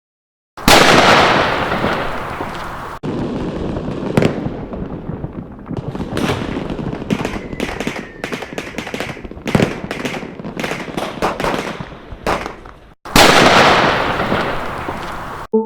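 Firecrackers going off: a loud bang with a long rumbling tail, then a run of many sharp cracks over several seconds, then another loud bang fading out.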